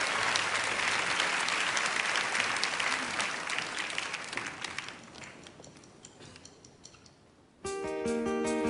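Audience applauding, dying away over about five seconds. After a short hush, a guitar starts playing plucked notes near the end.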